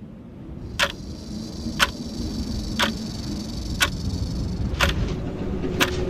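A clock ticking steadily once a second, six sharp ticks in all, over a low rumble that slowly swells.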